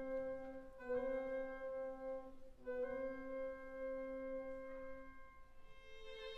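Soft background music: sustained notes that change every second or two, with a keyboard- or organ-like tone.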